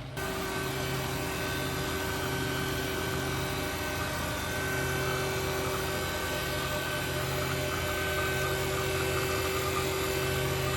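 Refrigeration vacuum pump running steadily, evacuating the cooler's sealed system after a filter-drier replacement, before the refrigerant charge.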